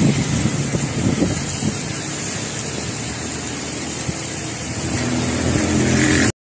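A small motor scooter's engine running as it passes, over a steady hiss of storm wind and rain. The sound cuts off abruptly near the end.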